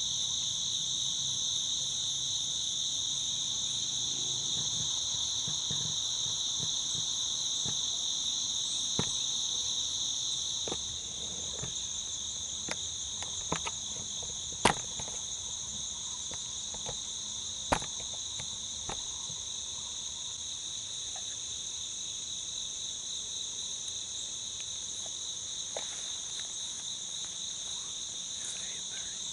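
Steady chorus of woodland insects, shrilling in two high, unbroken bands. A few sharp clicks and knocks break through around the middle, two of them louder than the rest.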